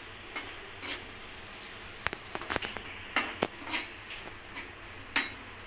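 Steel spoon clinking and scraping against a metal kadhai while stirring dry fruits frying in ghee, with a faint steady sizzle underneath. The knocks come irregularly, the sharpest one near the end.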